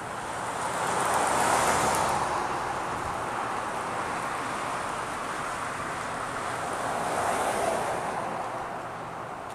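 Road traffic going by: tyre and engine noise that swells as one vehicle passes about a second and a half in, and again as another passes near the end.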